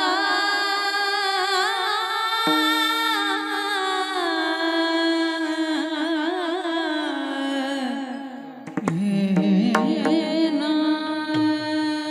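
Devotional kirtan singing: a singer holds long, wavering, ornamented notes that slowly fall in pitch over a steady instrumental drone. About eight seconds in there is a brief break with a few clicks, then the voice comes back on a lower note.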